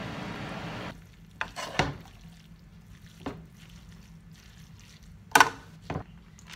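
Vegetable and pork filling sizzling in a frying wok for about a second, then cutting off suddenly. Afterwards a metal spoon and wooden spatula clack against the wok about five times as the filling is tossed, loudest a little past five seconds in.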